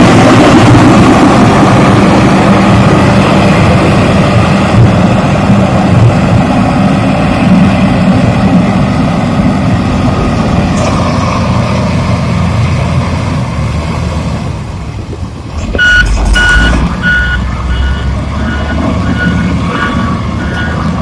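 Diesel engine of a JCB backhoe loader running loud and steady. About three-quarters of the way in the engine surges, and a reversing alarm starts beeping at about two beeps a second, a sign the machine is backing up.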